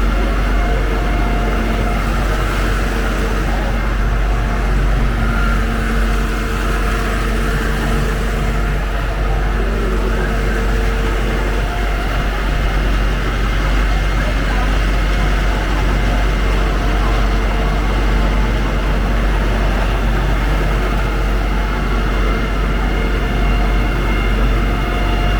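Steady street ambience dominated by a constant low rumble of engines and traffic, with a faint steady hum that comes and goes.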